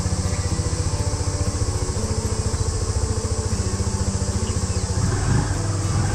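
2008 Honda Super Cub 50's single-cylinder four-stroke engine idling with a fast, even pulse, getting louder about five seconds in.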